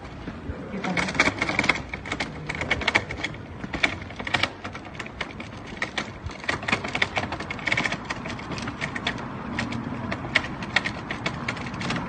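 Wheels of a two-wheeled shopping trolley rattling as it is pulled over pavement: a fast, uneven run of clicks and knocks.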